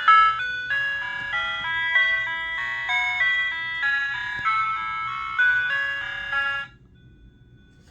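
Vixen 46 ice cream truck chime module playing its electronic jingle through its original horn speaker, a quick tune of clear, stepped notes that cuts off suddenly near the end.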